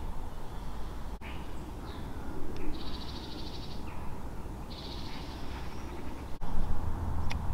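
Woodland bird calling: two high trilling bursts of about a second each, a few seconds apart, over a low steady rumble.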